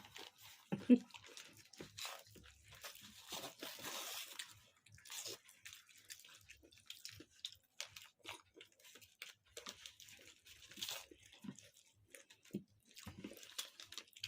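A person chewing and biting food close to the microphone, with many short irregular clicks and mouth noises and a denser noisy stretch about two to four seconds in. A short loud vocal sound comes just under a second in.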